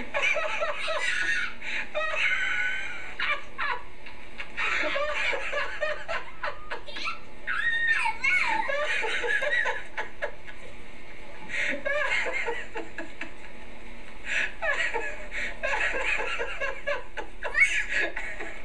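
Two young children laughing, giggling and squealing in short, repeated high-pitched bursts.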